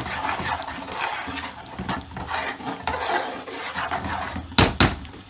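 A spoon stirring and scraping thick curry sauce around a pan, working the caramelised bits off the bottom, then two sharp knocks near the end, as of the spoon tapped on the pan.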